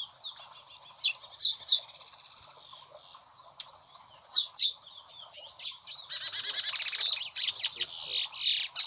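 Chestnut-bellied seed finches (curiós) calling: a string of short, high chirps and quick downslurred notes, then a dense, rapid trill from about six seconds in that is the loudest part.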